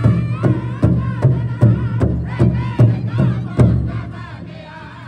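Powwow drum group singing together while beating one large shared drum with sticks in a steady beat, about two and a half strikes a second. Near the end the drumming drops out and only the voices carry on.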